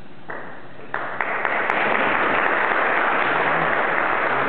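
Audience applauding, starting lightly and swelling to full, steady clapping about a second in.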